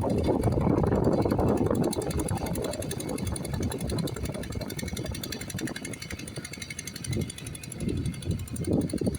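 A machine running with a fast rattling beat. It is loudest for about the first two seconds, then quieter, with a few sharper knocks near the end.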